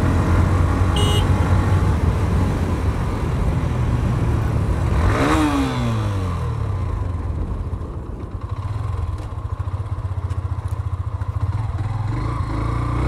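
Hero Xtreme 125R's 124.7 cc single-cylinder engine running under way, its pitch dropping about five seconds in, then settling into a slower, pulsing low-rev beat.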